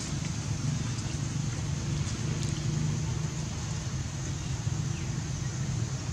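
Steady low rumble of road traffic, with a constant high hiss above it and a few faint ticks.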